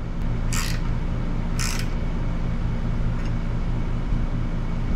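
Steady low mechanical hum with an even fast pulse, and two short rasping noises about half a second and a second and a half in.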